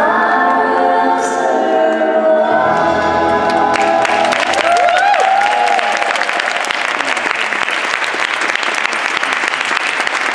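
Choral music with sustained voices plays its closing phrase and fades out about six seconds in. Audience applause breaks out about four seconds in, over the end of the music, and keeps going.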